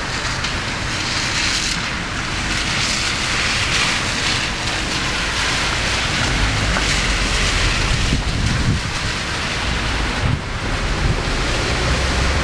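Steady rushing noise of rain and wind on the microphone over a wet street, with a car's tyres swishing past on the wet road about halfway through.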